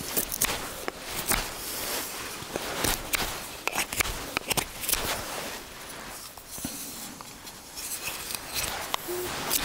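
Malanika puukko knife carving wood: a run of short scraping, shaving cuts, about two a second, with a sparser stretch after the middle.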